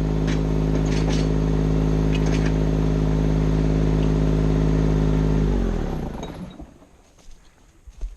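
An engine idling steadily, then switched off about five and a half seconds in, its note dropping as it winds down to a stop; a few faint clicks follow.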